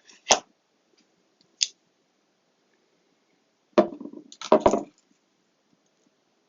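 Small hand tools and box parts being handled on a work surface: single sharp clicks near the start and a second or so in, then a burst of clattering knocks about four seconds in.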